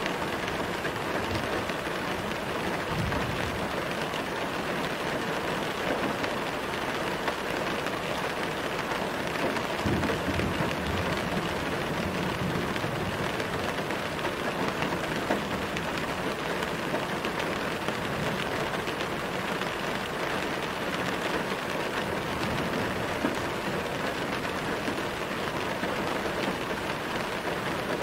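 Steady rain, an even hiss of falling drops with no letup, and a low rumble swelling briefly about three seconds in and again around ten seconds in.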